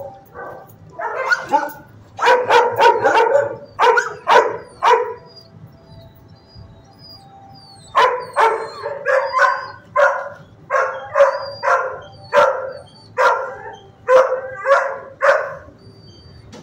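Kennelled shelter dogs barking in two runs of repeated barks. The first run starts about a second in, the second about eight seconds in, at roughly two barks a second.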